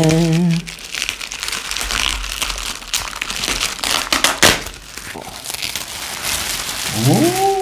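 Clear plastic bag wrapped around a soundbar box crinkling and rustling as hands pick at it and pull it open. There are a couple of sharp snaps about three and four and a half seconds in, the second the loudest.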